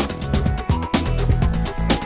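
Upbeat background music with a steady, driving beat: regular drum hits over a held bass line and sustained synth tones.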